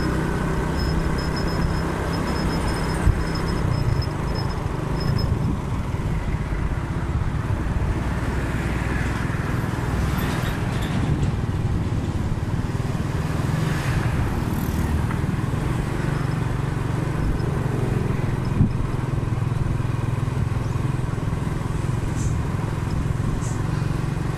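Motorcycle engine running steadily while riding at a constant pace, heard from the rider's seat, with road noise and surrounding traffic.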